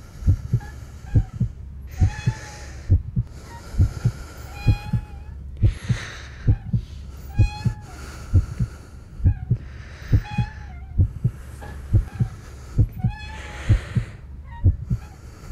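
Heartbeat sound effect: steady low double thumps, lub-dub, about one pair a second, with short wavering high-pitched tones over it every second or two.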